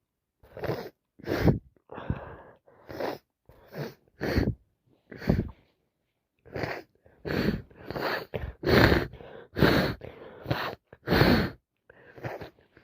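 A woman's hay-fever sneezing fit: a run of about fifteen sharp gasping breaths and sneezes in quick succession, with a short pause about halfway through. The loudest come in the second half.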